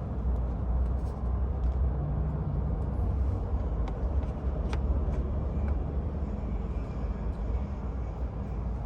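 Steady low rumble with a few light plastic clicks, as an aftermarket e-brake handle cover is pushed onto the lever, back notches first.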